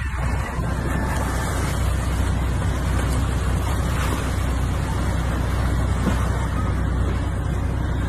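A boat under way: a steady low motor rumble under the hiss of water rushing past the hull, with wind on the microphone.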